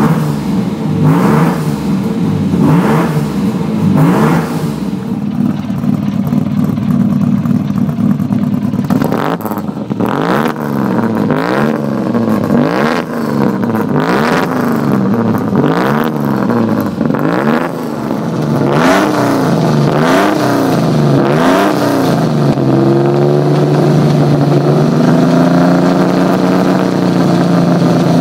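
Alfa Romeo Busso 3.0 V6 racing engine in an Alfa 75 Group A car, warming up. The throttle is blipped over and over, the revs rising and falling about once a second. For the last few seconds the engine holds steady at raised revs.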